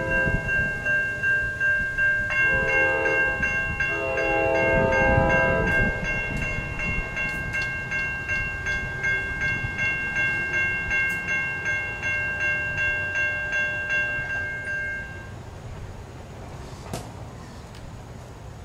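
Approaching train's air horn sounding in three blasts over the first six seconds, the first the longest. A bell dings about twice a second alongside it and cuts off about fifteen seconds in.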